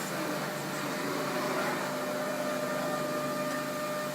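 MultiCam 5000 CNC router idling with its tool unloaded, ready to be switched off: a steady mechanical hum with a faint steady whine. A second, higher whine joins about two seconds in.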